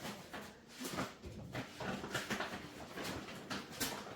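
Groceries being handled and set onto shelves: a string of light knocks, clatters and rustles of packages and cans.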